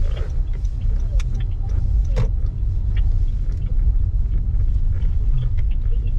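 Car cabin noise while driving: a steady low rumble of engine and tyres on the road, with a few light clicks.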